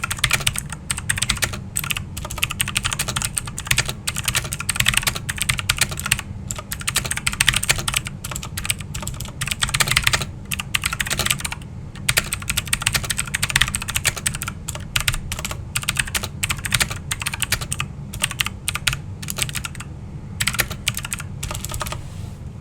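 Redragon K552 mechanical keyboard with clicky Outemu Blue switches and SteelSeries Apex Pro stock keycaps being typed on, a fast, continuous run of sharp key clicks. Near the end the typing thins out to a few scattered keystrokes.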